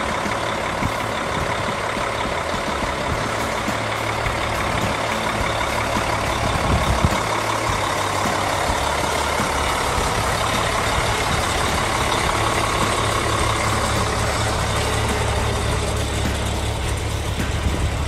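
Oshkosh MTVR Mk23 7-ton military truck's diesel engine idling steadily, heard up close.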